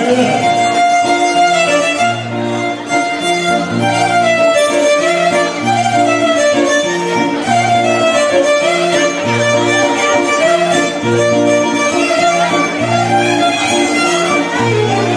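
Greek folk dance music led by a violin playing an ornamented melody over a steady, evenly repeating bass line.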